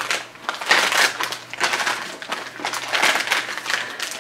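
Packaging being opened by hand to unwrap a mailed book: irregular crinkling and rustling.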